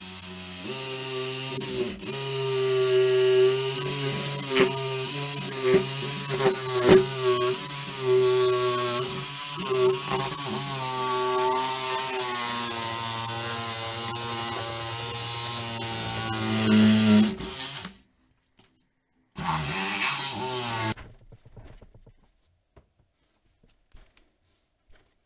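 Cordless reciprocating saw running and cutting through the plastic case of a drained car battery, its motor whine wavering in pitch as it cuts. It stops suddenly after about eighteen seconds, runs again briefly, then gives way to near quiet with a few small clicks.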